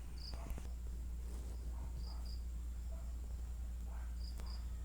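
Faint short high-pitched chirps, one and then pairs about two seconds apart, over a low steady hum.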